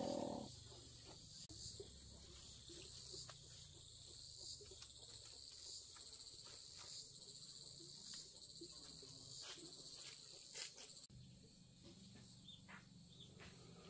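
Steady high-pitched chorus of insects chirping, with faint scattered clicks and knocks. About eleven seconds in, the sound cuts abruptly to a quieter background.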